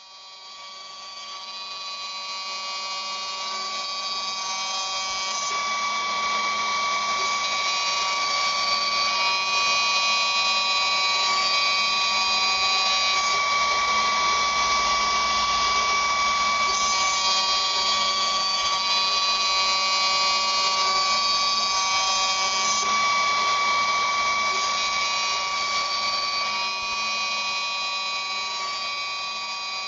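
High-speed spindle of a 3-axis CNC vertical machining centre milling lens openings into an acetate eyeglass-frame sheet: a steady high-pitched whine with cutting noise under it. It swells up over the first several seconds and eases slightly near the end.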